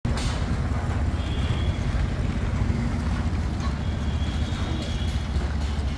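Mini tractor engine running steadily with a constant low drone.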